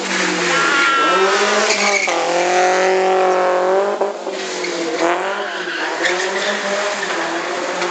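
Daihatsu Gran Max van driven hard through a slalom: engine revving up and down while the tyres squeal as it slides around the cones. The pitch rises and falls several times.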